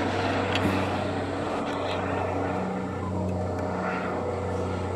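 Police helicopter flying overhead: a steady low drone from its rotor and engine, with a few faint clicks.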